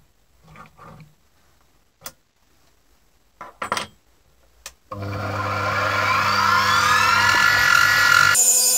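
A few light clicks and knocks of metal parts being handled in a machine vise, then about five seconds in the benchtop mini mill's spindle motor starts and runs up, its whine rising in pitch. Near the end the sound changes abruptly to a steadier high whine.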